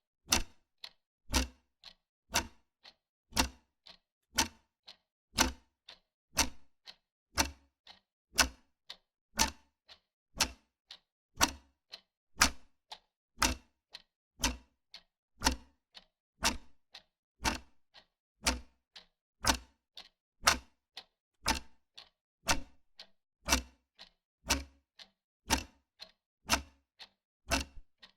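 Wall clock ticking steadily, about two ticks a second, alternating louder and softer in a tick-tock rhythm.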